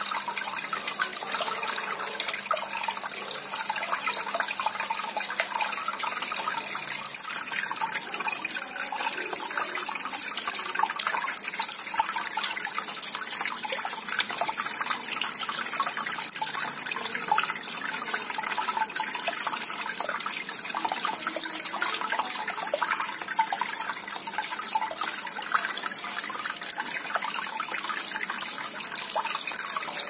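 Water from a small pump-fed cement tabletop waterfall fountain, trickling and splashing steadily as it spills over the rock ledges into a stone-filled basin.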